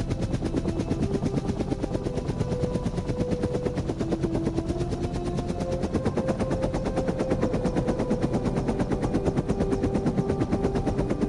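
UH-1 Huey helicopter rotor chop: the blades beat in a fast, steady pulse, with a wavering higher whine over it.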